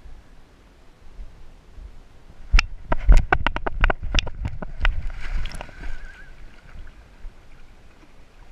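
A pit bull's paws splashing as it bounds through the shallows into the water, a quick run of about a dozen splashes over some three seconds, heard close and knocking through the GoPro housing strapped to the dog.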